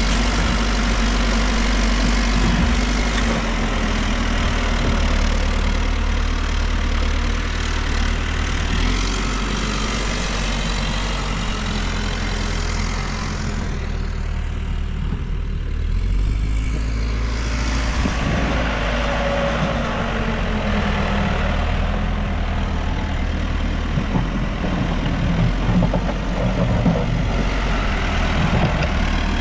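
New Holland backhoe loader's diesel engine running as the machine works, easing off for a few seconds around the middle and then picking up again.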